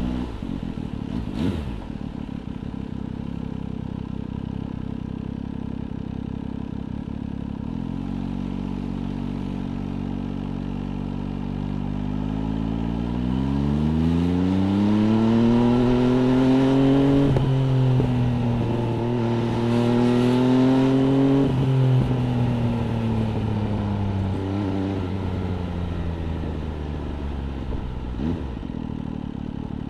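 MV Agusta Brutale 800 RR's three-cylinder engine through an aftermarket FF by Fresco exhaust. It runs steadily at first, revs up about halfway through and holds higher revs for several seconds, then drops back down. A few short sharp cracks come through along the way.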